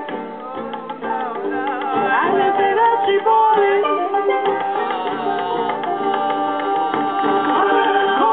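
Live acoustic band music, with an acoustic guitar playing along with other instruments.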